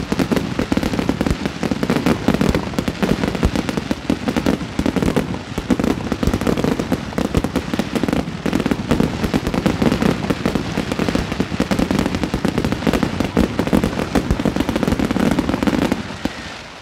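Fireworks display in a dense barrage: many shells bursting at once in rapid, overlapping bangs and crackle, dying away just before the end.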